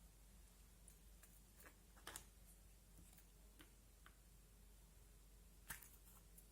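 Faint, scattered sticky clicks and pops of slime being handled, the two loudest about two seconds in and near the end.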